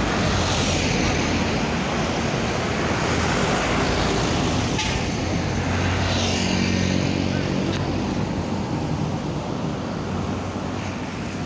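Steady road-traffic noise with the diesel engine of a large intercity bus running close by.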